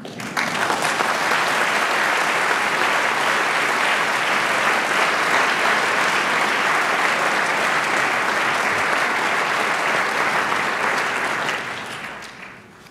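An audience applauding: sustained, dense clapping from a large seated crowd that starts abruptly and dies away near the end.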